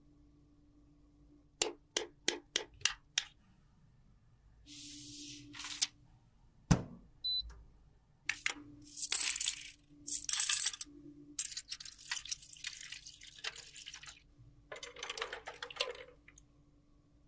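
Small hard objects being handled: a quick run of about six sharp clicks, then one heavy thump, then stretches of clinking, clattering and rustle as plastic makeup compact cases and clear lids are moved about in a stainless steel tray.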